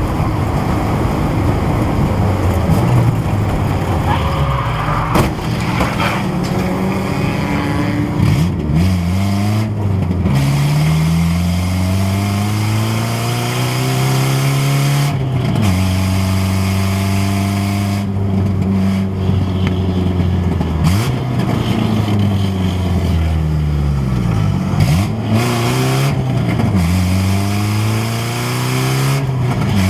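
A race car's Saab turbocharged four-cylinder engine under hard driving. Its pitch climbs through the revs and falls sharply at each gear change or lift, five or so times.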